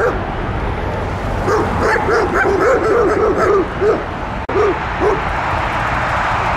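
An animal's short, arched whining calls, several a second in a burst about a second and a half in and twice more near the end, over a steady rushing noise.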